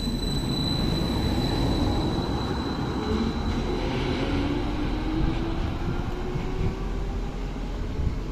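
Stadler B85600M low-floor tram pulling away: its traction drive whine rises slowly in pitch as it gathers speed, over the rumble of the wheels on the rails. A high steady whistle fades out about halfway through.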